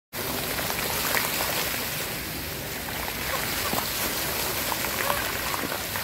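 Water from a dancing fountain's vertical jets and arcing jets spraying up and falling back into the pool: a steady splashing that sounds like heavy rain.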